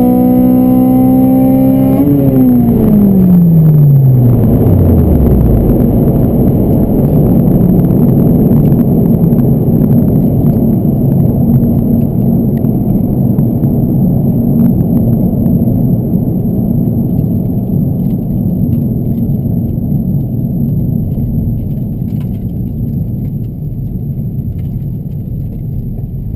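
2009 Honda Civic Si's four-cylinder engine, with custom intake and 3-inch exhaust, heard from inside the cabin at high revs at the end of a quarter-mile pass. About two seconds in, the throttle lifts and the engine note falls steadily away over about three seconds. After that comes the steady rush of wind and tyre noise as the car slows, slowly getting quieter.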